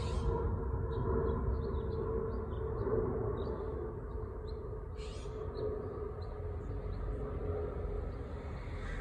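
Outdoor background: a low, steady rumble with a faint steady hum, and small scattered bird chirps.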